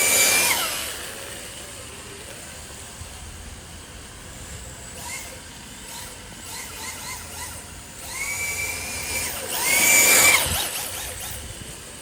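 RC drift car's motor whining at a high, steady pitch in bursts of throttle: a loud burst at the start, short blips in the middle, then a held whine about eight seconds in and the loudest burst, with a hiss, about ten seconds in.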